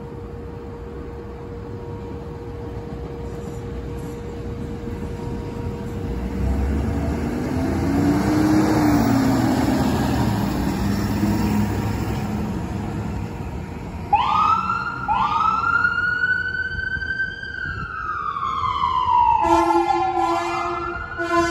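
Ford Super Duty ambulance driving past, its engine and tyre noise swelling as it goes by. About two-thirds of the way through, its siren starts with two short rising whoops, then a long wail falling slowly in pitch. Near the end a horn sounds in short repeated blasts over a rising siren.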